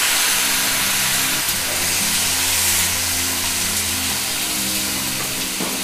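Boiled carrot pieces sizzling steadily in hot oil in a frying pan, just after being added, as their moisture hits the oil.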